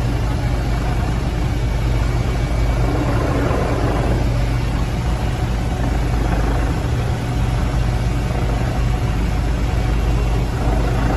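Steady drone of a helicopter's engine and rotor heard from inside the cabin.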